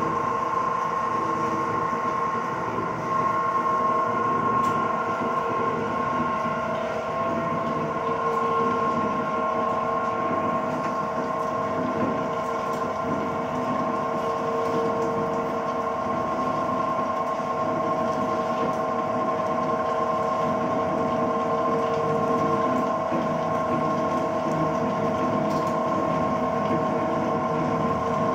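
Four-bolt screw oil expeller running, driven by its electric motor: a steady mechanical drone with several held tones over a grinding noise.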